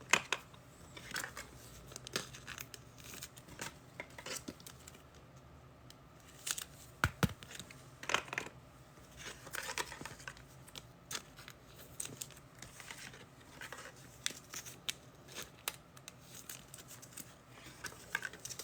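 Trading-card pack wrappers tearing and crinkling while cards are handled: scattered small rustles and clicks, a few louder tears about halfway through.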